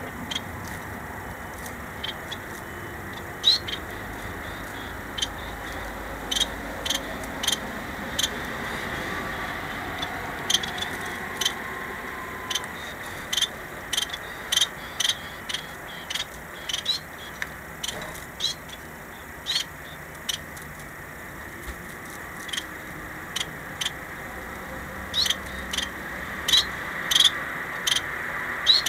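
Small caged finches giving short, high chirping calls, irregularly spaced and at times several a second, over steady background noise.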